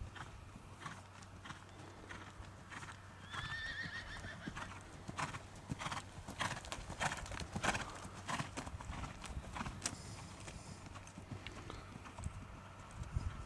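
Horse's hooves trotting on a sand arena surface, a run of soft rhythmic hoofbeats. A brief high-pitched call is heard about three seconds in.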